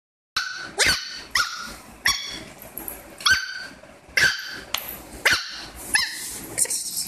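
Pomeranian puppy barking: a run of about eight high-pitched yaps, roughly one a second.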